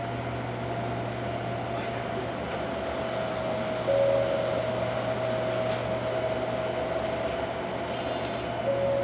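Electric train standing at a platform, heard from inside the car: a steady low hum and a steady high whine from the running onboard equipment, with a brief louder tone about four seconds in and again near the end.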